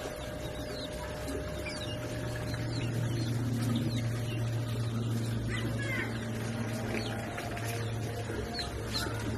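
Birds chirping: many short, high chirps scattered throughout, over a steady low hum.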